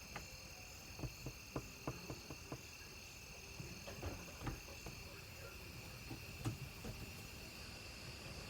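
Crickets chirping steadily in a high, even drone, with scattered short clicks and taps through it.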